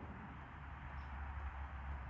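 Quiet, steady outdoor background noise: a low rumble with a faint hiss over it, and no shots or clicks.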